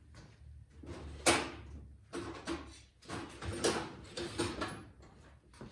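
Hand tools knocking and clinking against metal at the oil drain of a Gravely power brush, a string of separate sharp knocks with the loudest about a second in.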